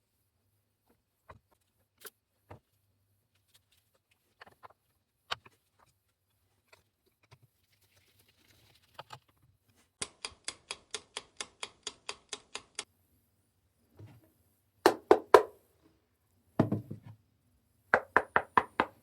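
Knocking on a reproduction A1 rifle stock to hear how hollow it sounds: a few scattered light taps, then a fast even run of about six knocks a second, then louder knocks in groups of two or three near the end.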